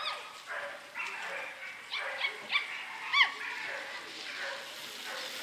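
A dog yipping and whining: about five short, high yelps that fall in pitch, one at the start and most bunched together about two to three seconds in.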